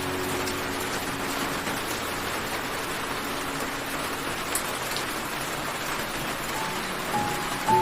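Steady rain falling, an even hiss of many drops. Soft music notes come back faintly near the end.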